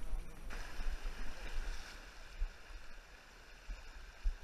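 Shallow river running over stones: a steady rush of water that cuts in abruptly about half a second in, with occasional low thumps.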